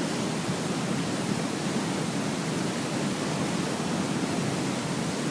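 Waterfall rushing: a steady, dense roar of falling water.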